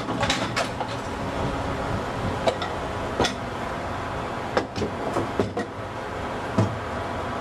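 Metal parts of an automatic transmission clanking and knocking as they are handled: the clutch drum assembly is drawn out of the transmission case and set down on the bench, a scattered series of sharp knocks over steady workshop noise.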